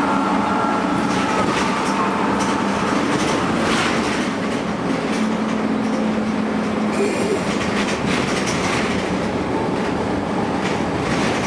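Dennis Dart SLF single-deck bus running with its engine cooling fan on: a loud, steady noise of engine and fan, with frequent rattles and knocks.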